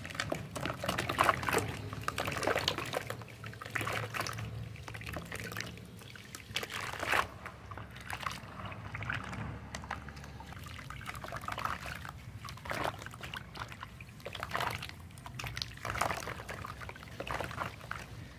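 Chunks of soft, wet sand crumbling and falling into water, with irregular splashes, trickling and crackling.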